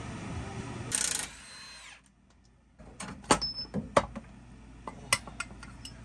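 Mechanic's hand tools at work on a pickup's rear shock absorber: a brief hissing burst about a second in, then a run of irregular sharp metal clinks and knocks as the driver's-side rear shock is unbolted and pulled free.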